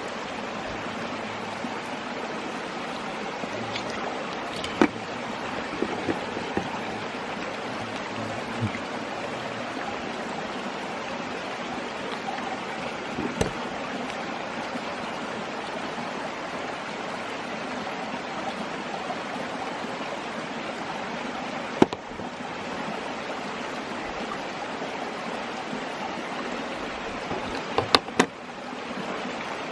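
Mountain stream babbling steadily, with a few sharp clicks and knocks now and then, two of them close together near the end.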